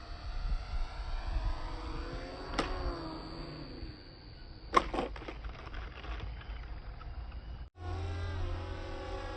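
Twin 816 brushed motors and 50 mm propellers of a small foam RC plane whining, the pitch wavering up and down as the throttle changes, over low rumbling wind noise. There are two sharp clicks, one a little before the middle and one about halfway, and the sound cuts off abruptly for a split second near the end before the whine picks up again.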